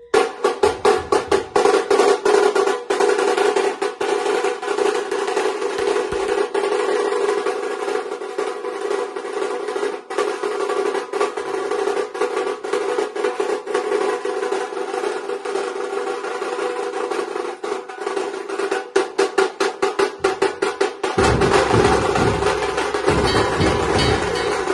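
Dhol-tasha drum troupe playing: fast, dense tasha rolls over dhol beats in a steady rhythm. Near the end a deeper, heavier drum sound joins in.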